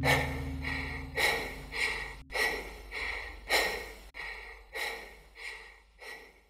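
A man panting hard after exertion: about ten quick breaths at an even pace, a little under two a second, growing fainter until they stop. The low tail of the music fades under them in the first couple of seconds.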